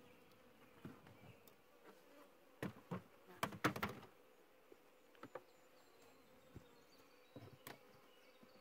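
Honeybees buzzing faintly and steadily around an opened hive. Over the buzz come sharp knocks and clicks from the hive frames and boxes being handled: a cluster of the loudest about three to four seconds in, then a few single ones later.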